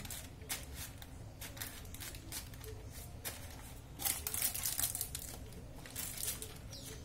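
Baking paper crinkling and rustling as it is pressed and smoothed into a bamboo steamer basket: a run of short crackles, loudest about four to five seconds in.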